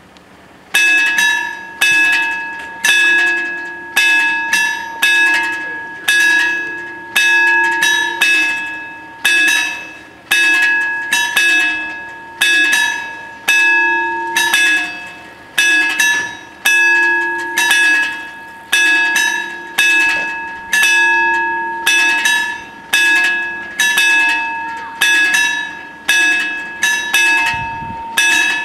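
The two warning bells of an FS 64-type level crossing ringing, starting about a second in. Each strike rings out and fades. The two bells strike out of step, so the blows come singly and in close pairs, about one to two a second. This is the crossing's warning of an approaching train while the barriers close.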